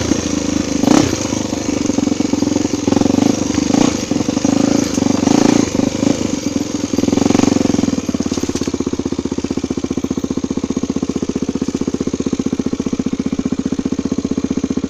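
Single-cylinder four-stroke trail motorcycle engine running at low revs with uneven throttle, with a few knocks. About eight seconds in it settles into a steady idle.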